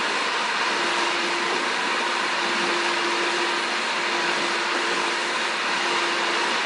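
Shop-Vac 4-gallon canister vacuum running steadily, a constant rush of suction air with a steady motor whine, as its floor nozzle is pushed back and forth over a hard floor.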